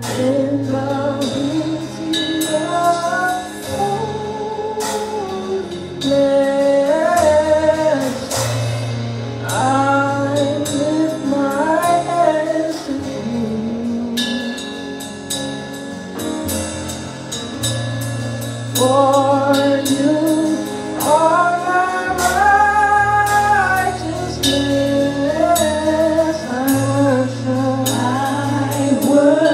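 Live gospel worship music: women singing a melody into microphones over a band with a drum kit and sustained low notes.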